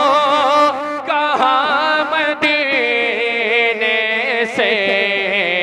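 A man singing a naat into a microphone, drawing out long melismatic notes with a wide vibrato.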